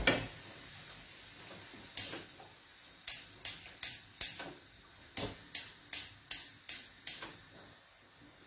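Gas hob spark igniter clicking while a burner knob is held in: a single sharp tick, then two runs of ticks at about three a second, four in the first run and six in the second.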